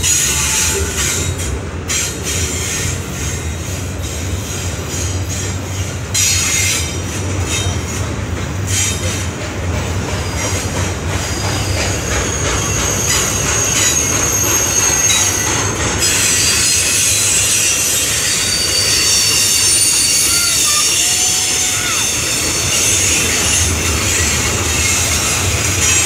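Norfolk Southern double-stack intermodal train's loaded well cars rolling past close by: a steady rumble of steel wheels on rail with a thin, high-pitched wheel squeal that grows clearer about halfway through.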